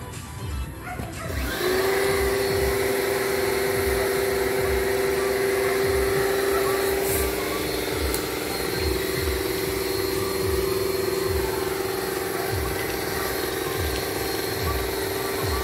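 A motor-driven machine starts about a second and a half in and runs steadily with a humming whine over a broad hiss.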